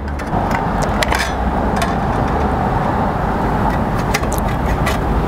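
Steady low mechanical rumble, like a motor running nearby, throughout. Over it come a few sharp clicks of tin snips cutting a pre-painted steel step-flashing shingle: a pair about a second in and another pair after four seconds.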